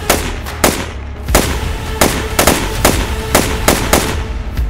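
A rapid run of about ten sharp, gunshot-like bangs, roughly two a second at uneven spacing, as a toy foam-dart blaster is fired repeatedly, with a music score underneath.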